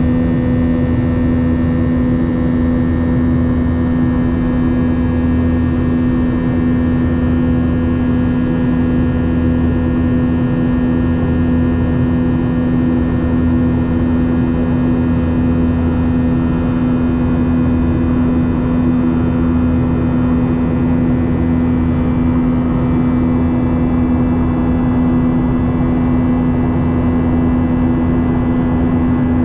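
Boeing 737-800's CFM56 jet engines heard from inside the cabin: a loud, steady drone with a prominent low hum over rumble and airflow, holding level throughout.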